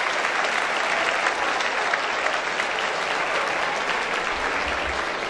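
A large audience applauding, steady dense clapping that eases off slightly near the end.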